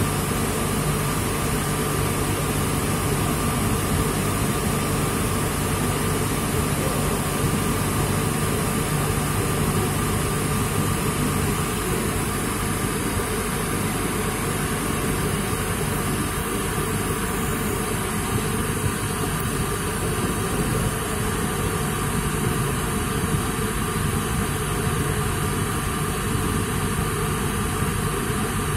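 Karnaval cotton candy machine running, its motor spinning the head with a steady hum and a thin, even whine over it.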